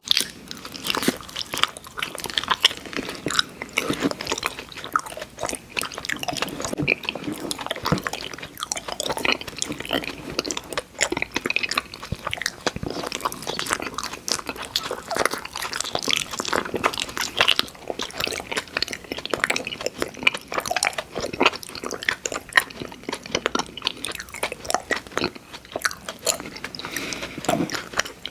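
Close-miked chewing and biting of sweets and candy: a steady run of crunchy, clicking bites and chews.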